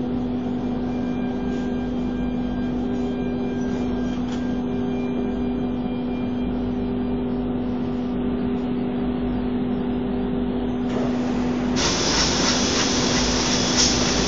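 ATC CNC router running, its spindle giving a steady hum over the rush of the dust-extraction system. About twelve seconds in the hum drops out and a louder rushing hiss of air takes over.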